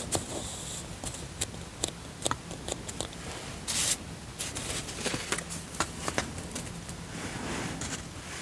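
Hands working with paper stickers on a paper planner page: scattered light clicks and taps of fingers on paper, with a short crisp rustle about four seconds in.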